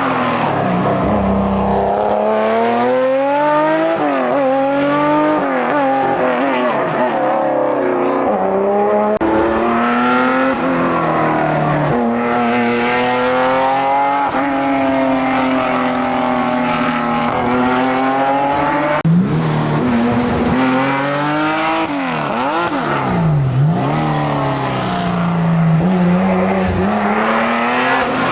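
Historic rally car engine revving hard on a special stage, its pitch repeatedly climbing under acceleration and dropping at each gear change or lift-off.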